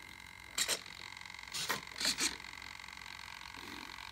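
Hands handling a foam RC model airplane: three brief rustles, about half a second to two seconds in, over a steady faint whine.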